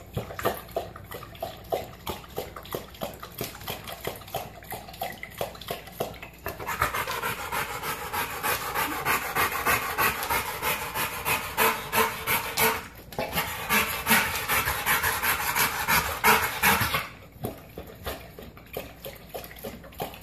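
American bulldog lapping water from a stainless steel bowl in quick rhythmic laps, then panting hard and fast, with a short break about thirteen seconds in. The panting eases near the end. He is out of breath after a run.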